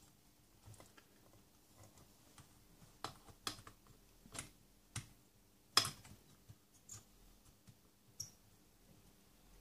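Scattered light clicks and taps of hands handling wires and a soldering iron on a valve radio chassis while terminals are re-soldered; the loudest click comes about six seconds in.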